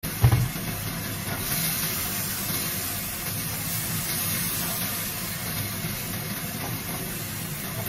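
Tofu and scallions sizzling steadily in oyster sauce in a nonstick wok while a spatula stirs them. A sharp knock sounds about a quarter second in.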